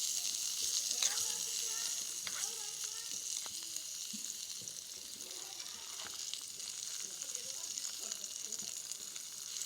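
Food frying in hot oil in a pan: a steady sizzle, with a few light clicks of stirring.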